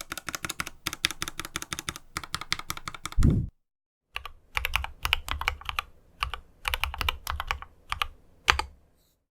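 Fast typing on a mechanical keyboard with linear Gateron Ink Black switches: rapid runs of keystroke clacks. A deep thump comes about three seconds in, followed by a short pause before the typing resumes.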